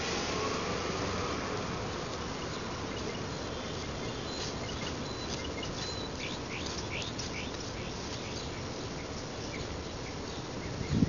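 Steady outdoor background noise with a run of short, high chirps in the middle stretch.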